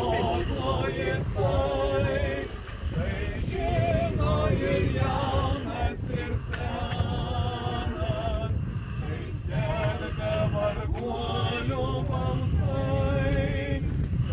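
Mixed church choir of men's and women's voices singing a cappella, in phrases with vibrato, over a low rumble.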